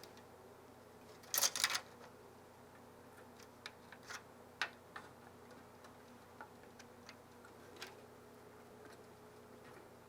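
Light clicks and taps from a PC cooler's backplate bracket being handled and fitted. There is a quick cluster of louder clicks about a second and a half in, then single scattered ticks until near the end, over a faint steady room hum.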